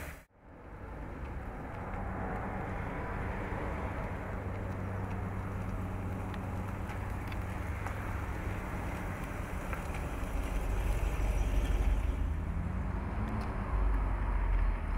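1964 Bentley S3 Continental's 6.2-litre V8 running at low revs, heard from outside the car as a steady low rumble. Near the end the revs rise briefly as the car pulls away.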